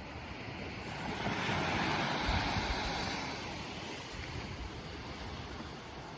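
Gentle sea waves washing ashore: one swell of surf builds about a second in and eases back down over the next few seconds.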